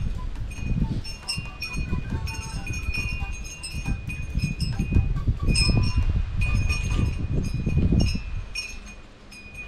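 Wind chimes tinkling, a few metal tones repeating at the same pitches, over a low, uneven rumble that fades near the end.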